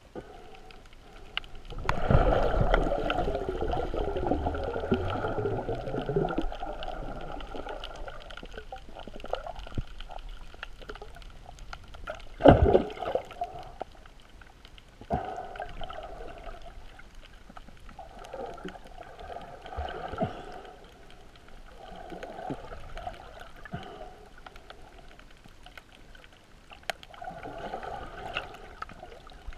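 Muffled water noise heard through a GoPro's underwater housing during snorkelling: water rushing and sloshing in swells every few seconds, loudest for a few seconds near the start, with one sharp knock about halfway through.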